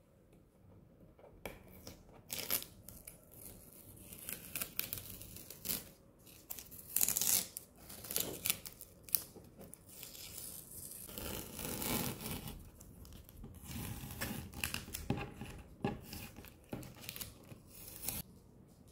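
Masking tape being peeled off the edges of rough watercolor paper: a string of irregular ripping pulls, starting about a second and a half in, loudest around seven and twelve seconds in.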